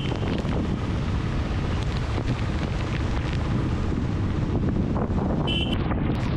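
Steady wind rushing over the microphone of a Royal Enfield Classic 350 motorcycle ridden on a wet road. A brief high-pitched chirp comes near the end.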